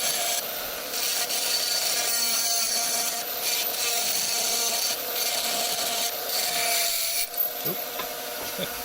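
Rotary tool with a carbide routing bit grinding out cracks in a brass ball valve body: a steady motor whine under a harsh rasping cut, broken briefly a few times where the bit lifts off. The cutting noise stops about seven seconds in while the motor keeps running.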